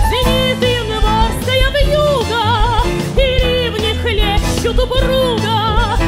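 A woman singing a wordless melody with wide vibrato over a small band with double bass and drums.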